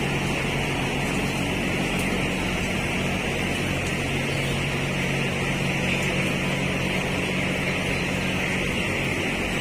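Steady drone of a poultry house's large ventilation fans, with a constant high chorus of peeping from a dense flock of 12-day-old broiler chicks over it.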